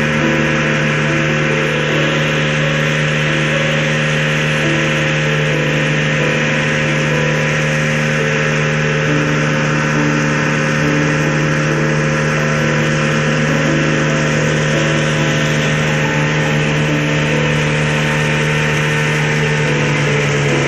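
A small river boat's engine running steadily at cruising speed, one even low note with its overtones, over the rush of water along the hull.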